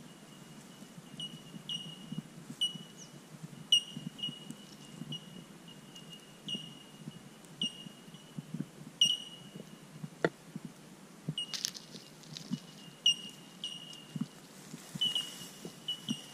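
Short high chirps from wildlife, each sliding slightly down in pitch, repeating about once or twice a second, over faint scratching and rustling of dry grass as a tickle stick is worked at a wolf spider burrow.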